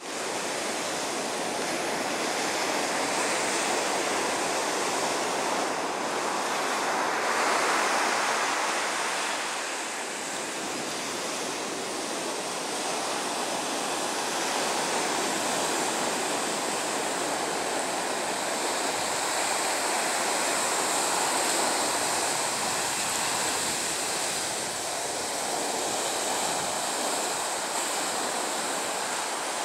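Sea waves breaking and washing up the beach in a steady rush of surf, loudest about eight seconds in.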